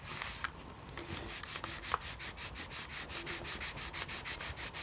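A damp cloth rubbed briskly back and forth over the plastic casing of a Sony MZ-N710 MiniDisc Walkman, a rapid even swishing of about six strokes a second.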